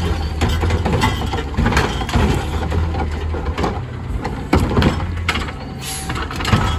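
Garbage truck's engine running with a rapid string of clanks and knocks from its mechanism handling a trash cart.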